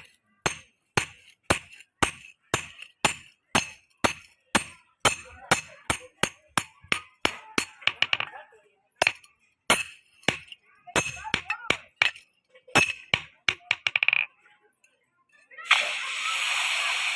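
Hammer blows on metal in an axe repair, about two a second, each a sharp ringing clink. They stop, and after a short pause a steady hiss runs for about two seconds near the end.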